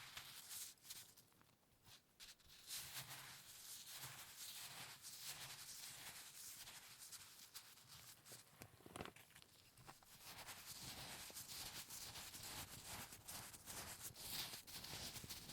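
Faint scratching and rustling from hands handling food and utensils during cooking preparation, with one sharp click about nine seconds in.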